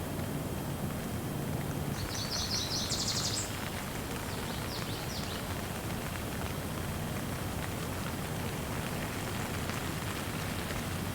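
Steady rain falling. A bird gives a rapid, high trilled call about two seconds in, followed by a shorter burst of high chirps.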